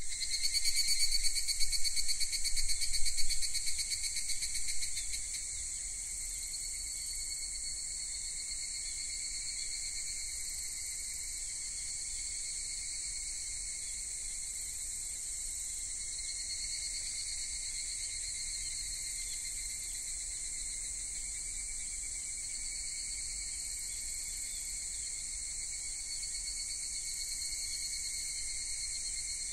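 A steady, high-pitched insect chorus trilling without pause. It is louder and pulses rapidly for the first five seconds or so, then settles to an even level.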